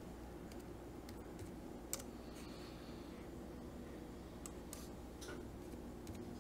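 Faint, scattered taps of computer keyboard keys as numbers are typed into dimension fields, one slightly louder about two seconds in, over a faint steady low hum.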